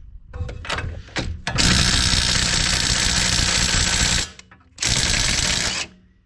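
Impact wrench hammering on a 21 mm steering-knuckle nut to break it loose: a few short stabs, then a long burst of about two and a half seconds, a brief pause, and a second burst of about a second.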